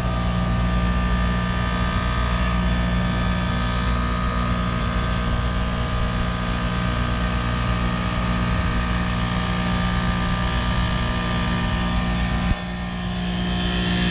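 Trane Odyssey commercial heat pump running through a defrost cycle: a steady compressor hum with several steady tones above it. A sharp click comes about twelve and a half seconds in, after which the sound drops and slowly builds back up.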